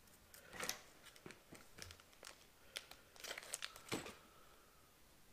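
Faint crinkling and rustling of a plastic lure package being handled, with scattered light clicks and a sharper click about four seconds in.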